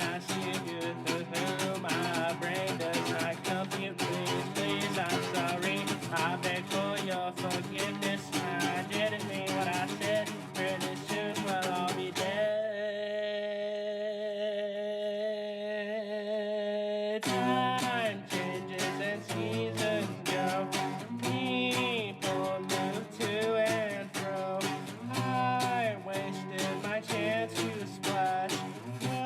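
A song with guitar and a sung melody. About twelve seconds in, the music thins to a held chord for about five seconds, then the guitar and the melody come back in.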